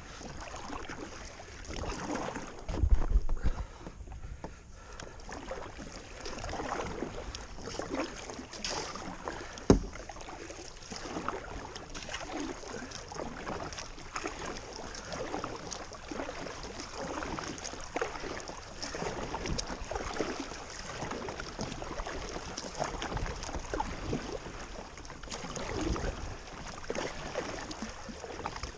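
Kayak paddle strokes splashing in river water, irregular and ongoing, with a low thump about three seconds in and a sharp knock near ten seconds in.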